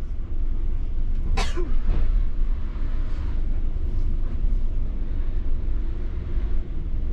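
Tour coach's diesel engine running with a steady low rumble as the coach creeps into the Eurotunnel shuttle wagon, heard from inside the coach. A short voice sweeps up and down about a second and a half in.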